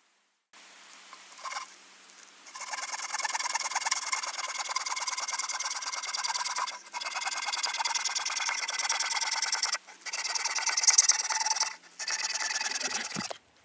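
Garden hand saw cutting through a log, a steady rasping of back-and-forth strokes that breaks off abruptly a few times.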